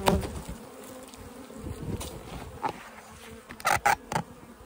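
Honeybee colony buzzing steadily from an open hive, with a few sharp knocks of the wooden frames and boxes being handled, the loudest a quick cluster about three and a half to four seconds in.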